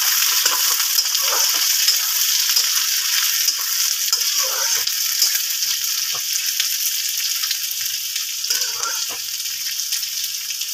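Sliced onions sizzling as they fry in hot mustard oil in a kadhai, with a steady high hiss. A spatula scrapes and knocks against the pan now and then as the onions are stirred.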